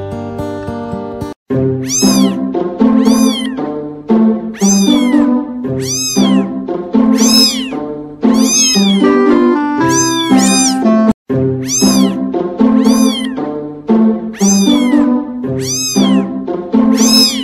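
Music built from cat meows: high meows that rise and fall in pitch, one or two a second in a steady rhythm, over a simple tune. The track cuts out for a moment about a second and a half in, and again about eleven seconds in.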